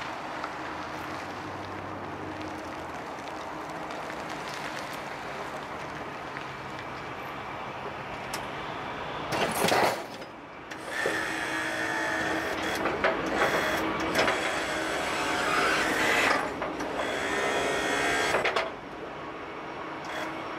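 Ford F-350 pickup running as it pulls up, then its snowplow's hydraulic pump runs as the blade is moved: a short loud burst, then a steady whine for about seven seconds that stops sharply.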